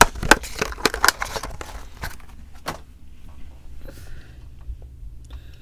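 Light clicks and taps of a small die-cast model car being handled and set down on a tabletop, many in the first two and a half seconds and only a few after, over a faint low hum.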